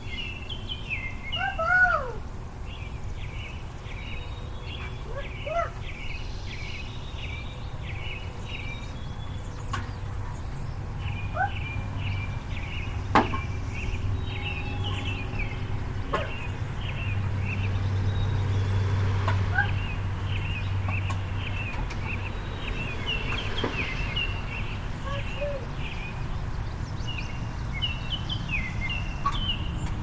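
Backyard birds chirping, with runs of quick repeated notes and a few sliding calls, over a low rumble that grows louder in the middle.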